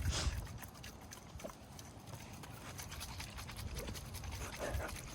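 Soda bottle being shaken hard by hand: faint, quick sloshing and knocking that builds up the fizz before the bottle is thrown to burst.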